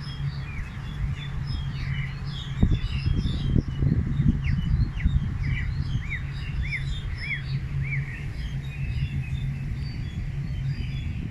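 Several songbirds chirping and calling, with one bird repeating a short arched note about five times in a row midway through. A steady low hum and a stretch of louder low rumbling, a little over two seconds in and lasting about two and a half seconds, run under the birdsong.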